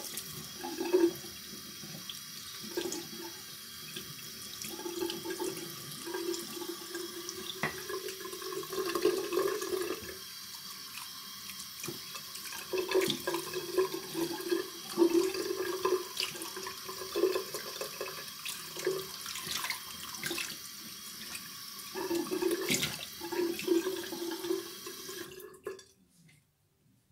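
Tap water running into a bathroom sink as a shaving brush and lather bowl are rinsed under it, with occasional small knocks and splashes. The water cuts off suddenly near the end.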